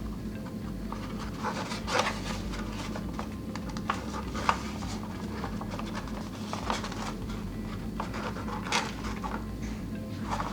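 A folded sheet of paper being handled and creased by hand: scattered soft crinkles and small ticks over a steady low hum.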